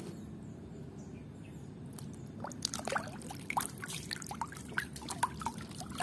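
Water splashing and trickling as a plastic toy animal is swished by hand in a tub of muddy water: quiet at first, then many small splashes and drips from about two seconds in.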